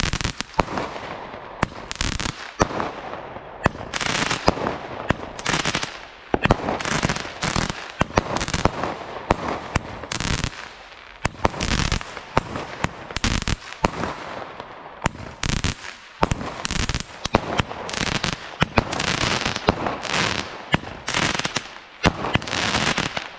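Consumer fireworks, the Lidl 'Discovery', firing a long run of shots: sharp bangs in quick succession, several a second at times, with short lulls between volleys.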